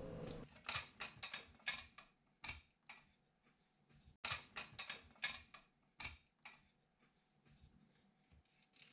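Scattered light clicks and knocks of an airsoft MG42 replica being taken apart by hand, as its receiver latch is worked and the top cover swung open; a sharp click about four seconds in, followed by a quick run of clicks.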